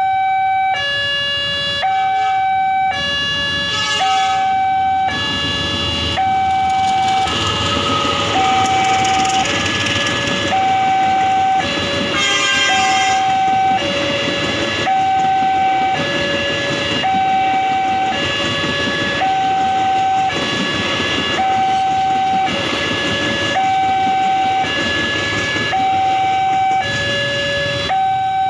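Indonesian level-crossing alarm from the signal's horn speaker: an electronic two-tone warning that switches between a higher and a lower tone about once a second. A passing passenger train adds the rumble of its wheels on the rails, loudest from about six to fourteen seconds in.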